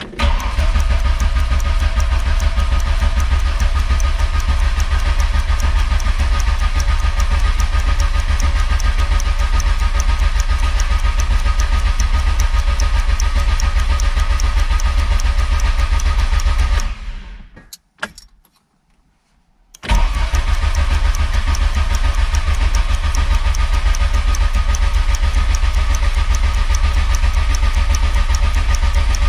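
Starter motor cranking the Lotus Esprit Turbo's four-cylinder engine with the ignition leads off and no fuel, so it turns over at a steady, even rhythm without firing, to build oil pressure. The cranking stops for about three seconds a little past halfway, with a click, then starts again.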